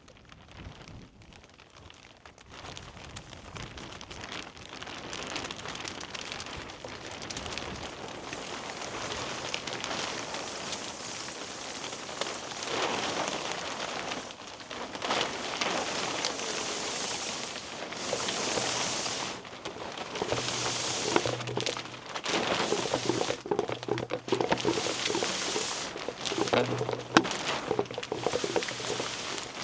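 Background music fading in from silence, with a dense hissy texture and a low repeating bass line in its second half.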